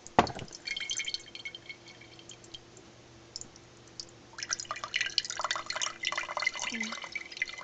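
Wheatgrass juice dripping through a reusable mesh coffee filter into a measuring cup, with a sharp knock just at the start. The drips thin out to almost nothing, then come again thick and fast about four seconds in.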